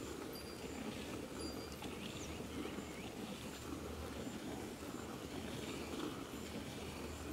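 Milk squirting from a cow's teats into a steel pail already holding foamy milk, as the cow is milked by hand.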